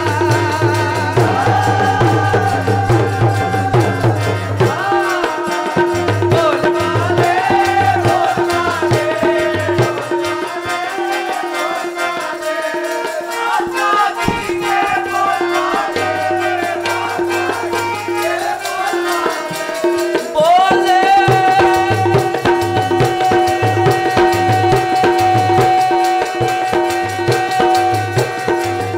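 Sikh kirtan: a singer's voice over harmonium with its steady drone, accompanied by tabla. The tabla strokes mostly drop out for a stretch in the middle and return about two-thirds of the way through, as a long note is held to the end.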